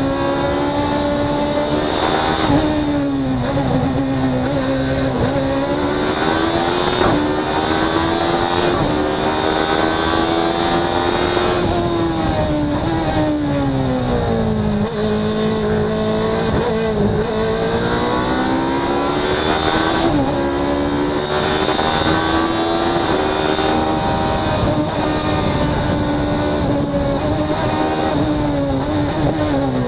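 Racing car engine at full effort, heard from inside the open cockpit during a hillclimb run. Its pitch climbs and falls through the bends with quick gear changes, and near the end it drops steeply as the car brakes and shifts down.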